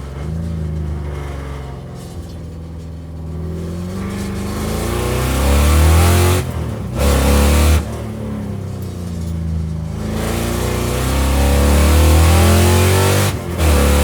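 2000 Ford SVT Mustang Cobra R's 5.4-litre DOHC V8 with side-exit exhaust, pulling hard under acceleration with its revs climbing. The sound cuts out briefly for gear changes, twice around the middle and once near the end, then the engine pulls again.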